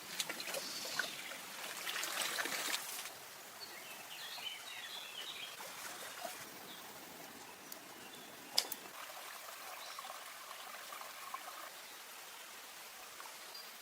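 Stream water running and trickling, louder and more splashy for the first three seconds. A few short clicks are heard, with one sharp click a little past halfway.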